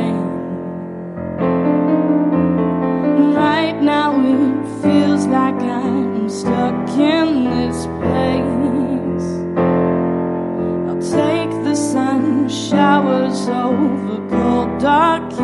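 Yamaha stage keyboard playing slow piano chords, with a woman's voice singing wordless, wavering melodic lines over them.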